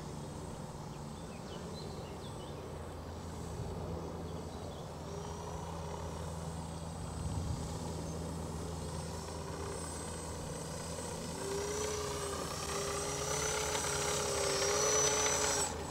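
Small motor and propeller of a scratch-built RC Magnus-effect model plane in flight, a whine that wavers in pitch with the throttle and grows louder over the second half, then cuts off suddenly at the very end.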